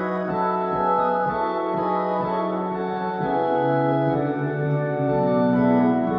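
Digital piano played with an organ voice: held, non-decaying chords under a moving upper line, with a lower chord sustained from about three and a half seconds in.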